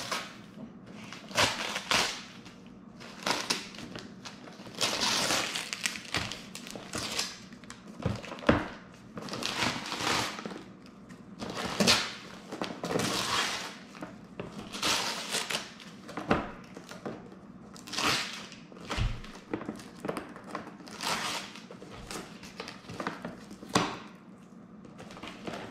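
Gift-wrapping paper being torn off a box and crumpled, in many irregular rips and crinkles, with a few dull knocks among them.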